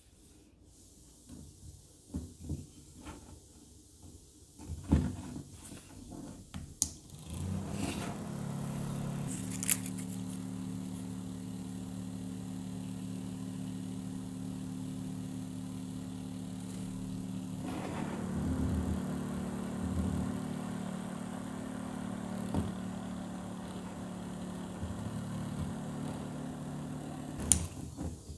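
A few handling clicks and knocks, then a homemade fan's small DC motor starts about seven seconds in and runs with a steady hum, stopping just after a sharp click near the end.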